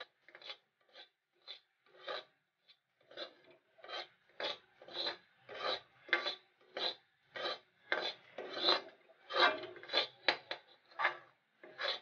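Metal spatula scraping and stirring semolina being roasted in a steel kadai, in repeated rasping strokes about two a second, sparse at first and more regular after a few seconds.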